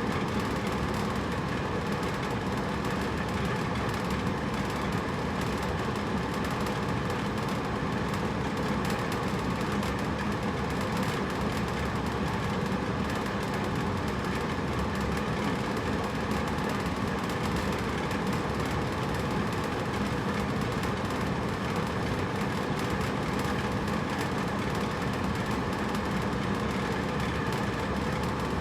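Hotel room air conditioner running steadily: an even fan and airflow drone with a low hum, unchanging throughout.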